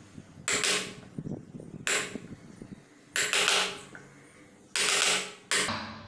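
Wood chisel pushed by hand, paring wood out of a strike-plate recess in a door jamb: five short scraping strokes, roughly a second apart.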